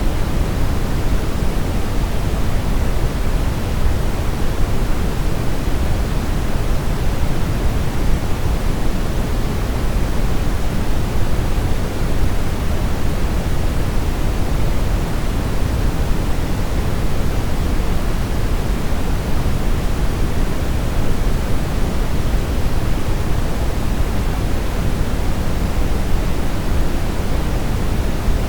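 Brown noise: a steady, even rumbling hiss, deepest in the bass and falling off toward the treble, played continuously as a sleep aid.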